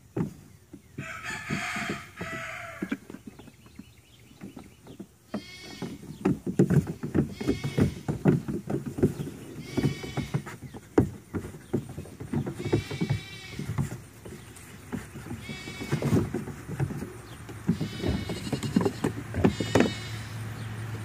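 Mini goat kids bleating again and again in short, high-pitched calls, with their hooves knocking and thudding on a wooden cable spool and plastic play equipment.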